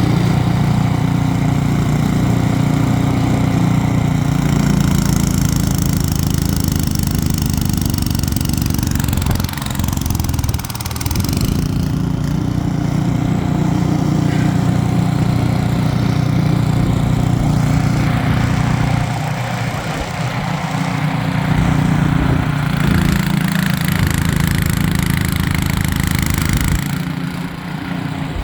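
Ariens 28-inch snowblower engine running steadily under load, chewing through a bank of wet, heavy snow. The sound sags briefly a few times, about a third of the way in, around two-thirds of the way in, and near the end.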